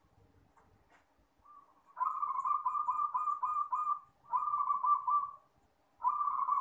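Zebra dove (perkutut) cooing: a phrase of quick repeated coo notes about two seconds in that lasts about two seconds, a shorter phrase right after, and a third starting near the end.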